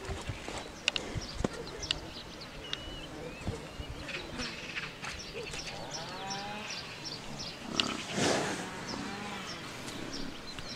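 Greek water buffalo grazing close up, cropping grass with short tearing clicks. About eight seconds in comes a short, loud animal sound.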